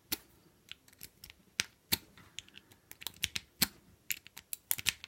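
Irregular small metallic clicks and ticks of a half-diamond lock pick working the wafers of a keyed wafer gun lock, coming faster in the second half.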